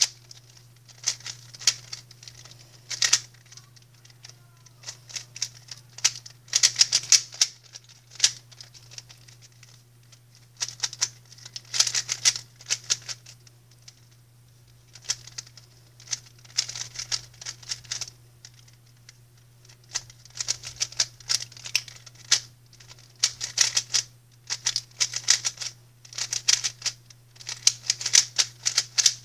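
GAN 356 Air SM magnetic speedcube being solved fast: bursts of rapid, clickety plastic clacking from quick face turns, broken by short pauses, over a steady low hum.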